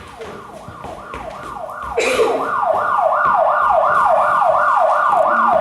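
Police siren on a fast yelp, each wail falling in pitch, about three a second. It swells in and is loud from about two seconds in.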